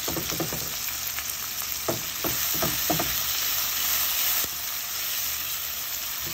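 Sliced onions and carrot strips sizzling in olive oil in a pan as a spatula stirs them, with scrapes and knocks of the spatula in the first three seconds. The sizzle drops a little about four and a half seconds in.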